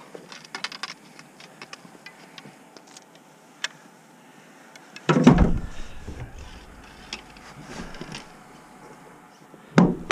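Handling noise on a GoPro's mount: scattered light clicks and taps, then a sudden heavy bump and rumble on the microphone about five seconds in, and another near the end as a hand takes hold of the camera.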